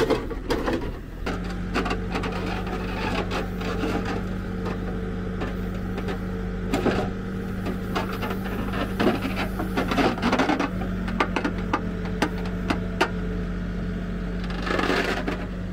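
Backhoe's diesel engine running steadily under hydraulic load, its note changing about a second in. The bucket scrapes and clatters through clay soil and clods, digging a test pit.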